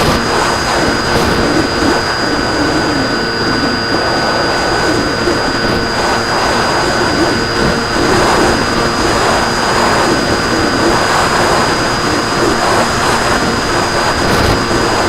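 An RC plane's motor and propeller running steadily in flight, a constant drone with a few fixed tones over rushing noise.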